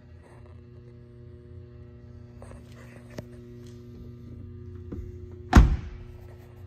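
Door of a 2014 Toyota Tacoma regular cab pickup swung shut, one heavy thunk a little over five seconds in, after a few faint clicks. A steady low electrical hum lies under it.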